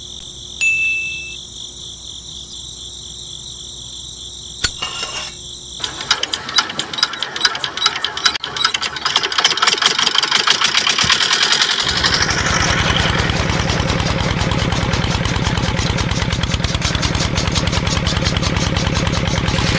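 Miniature single-cylinder diesel engine being hand-cranked, with rapid even clicking. About twelve seconds in it catches and then runs steadily with a fast, even beat.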